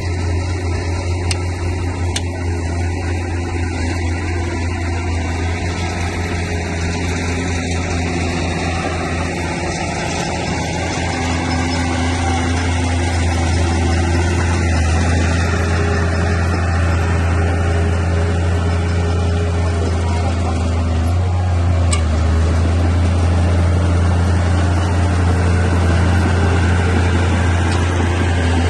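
Crawler bulldozer's diesel engine running steadily with a deep low drone, growing a little louder about halfway through.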